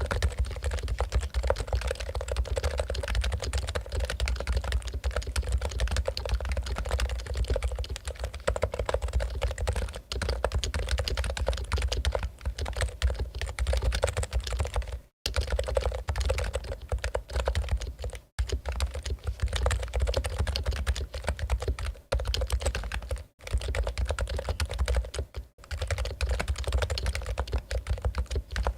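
Fast, continuous typing on a Topre Realforce keyboard, whose electrostatic capacitive rubber-dome switches make a dense stream of keystrokes. The typing stops for a moment four times in the second half.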